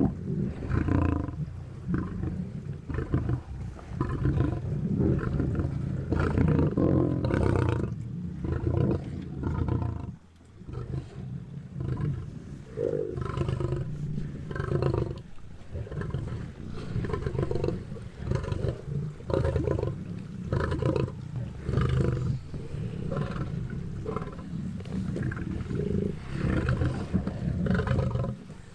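A pride of lions growling almost continuously as they feed on a zebra carcass, in many short, rough pulses, with a brief lull about ten seconds in.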